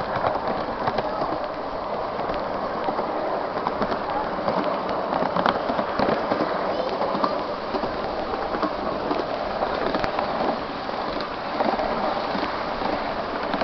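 Running clatter of a 7¼-inch gauge miniature railway train carriage at speed: a steady rumble of small wheels on the track, dense with quick irregular clicks.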